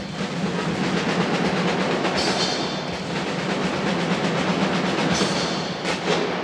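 Drums played in a fast, steady rhythm over a sustained low tone, with a few sharper accents near the end.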